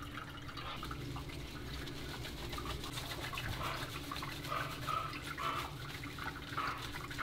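Water and wet, soapy squishing as a dog's curly coat is lathered with shampoo and worked through by hand.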